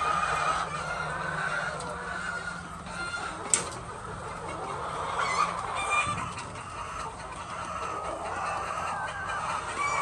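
A large flock of white laying hens clucking and calling all at once, a continuous overlapping din. A single sharp click sounds about three and a half seconds in.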